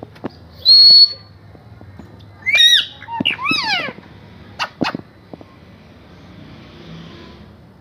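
Pet parrot calling: a short held whistle about a second in, then a run of rising-and-falling squawks around three seconds in and two sharp chirps near five seconds, after which it goes quiet.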